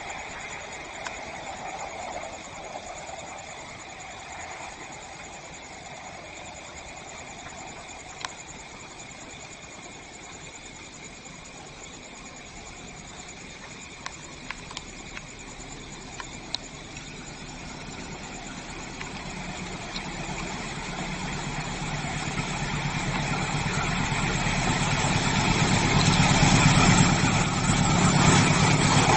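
Diesel locomotive approaching: a low engine hum, faint at first, grows steadily louder over roughly the last ten seconds.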